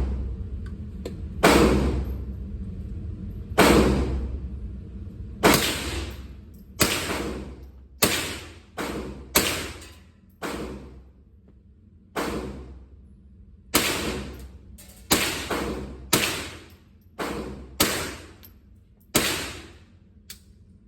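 A .22-calibre gun fired repeatedly, about sixteen shots at an uneven pace, some barely half a second apart and others a second or two apart, each shot trailing off over about a second.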